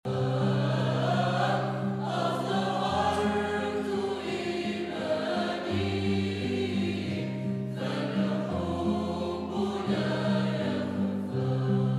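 Mixed choir of men and women singing a hymn in harmony, over held low notes that change every second or two.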